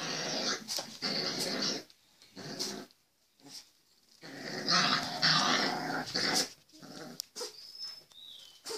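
One-month-old pitbull puppies growling in play while mouthing and tugging a plush toy, in rough bursts of a second or two with short gaps.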